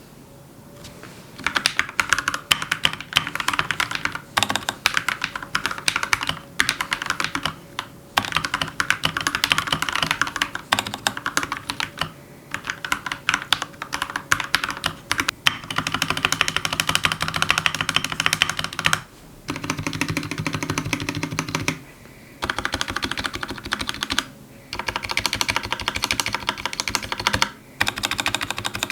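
Typing on a GMMK full-size hot-swappable mechanical keyboard with Gateron Red linear switches. It comes as fast runs of key clacks in bursts of a few seconds, with short pauses between them.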